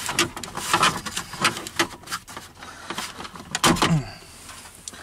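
Plastic lower dash trim panel of a Dodge Ram pickup being pulled off by hand: a run of clicks and knocks as its clips let go and the panel knocks against the dash, with the loudest knock a little before the end.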